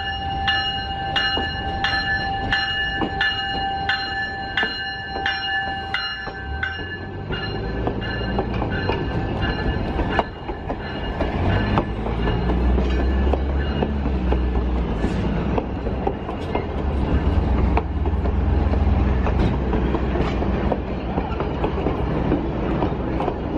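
A train bell on the leading end of a heritage passenger train that is being pushed in reverse is rung steadily, a little under twice a second, as a warning of the approaching train; it stops about seven seconds in. Passenger coaches then roll closely past with wheel clicks, and from about twelve seconds in the low rumble of the diesel locomotive pushing from the rear grows.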